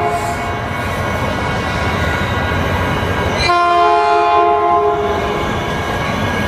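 Multi-note air horn of an approaching Caltrain commuter train led by cab car 4025. One blast ends just after the start, and a second blast about three and a half seconds in lasts under two seconds, over a steady rumble.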